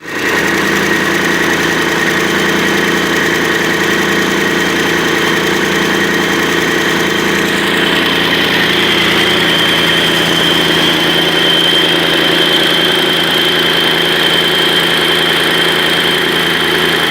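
Freshly rebuilt Mercedes-Benz OM 502 V8 diesel engine running steadily on its first run after overhaul, with a high whine over it that steps up in pitch about eight seconds in.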